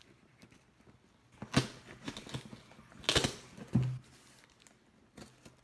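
A cardboard shipping box being cut open by hand: a few short knocks and scrapes as the tool works through the tape and flaps, the longest and loudest about three seconds in.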